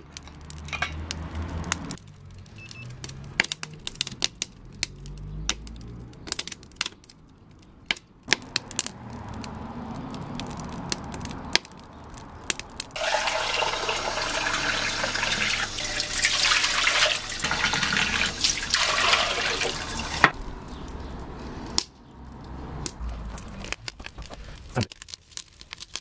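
A kitchen tap running into a glass measuring jug, a steady rush of water lasting about seven seconds in the middle. Before and after it, a wood fire in a wheel-rim stove crackles, with scattered sharp clicks.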